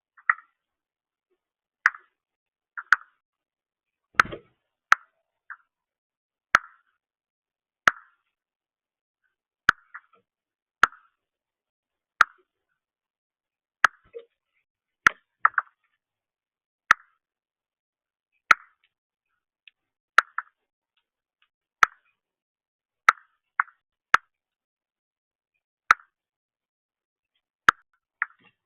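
Birds pecking at seed on a feeder: a string of sharp, hollow taps, irregularly spaced about a second apart, with one heavier thump about four seconds in.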